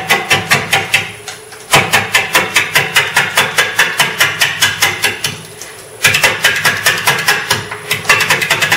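Bowl gouge taking interrupted roughing cuts on an out-of-round, out-of-balance ash bowl blank spinning at 295 RPM on a wood lathe: a rapid knocking about five times a second, once per turn of the blank as the tool meets the high spots. The cutting breaks off briefly about a second in and again just after five seconds, then resumes.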